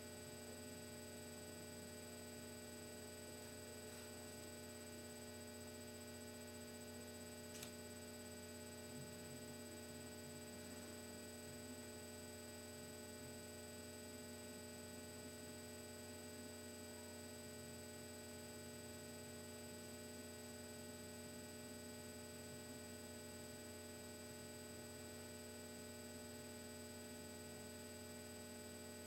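Faint steady electrical hum made of several steady tones at once, with a single faint tick about eight seconds in.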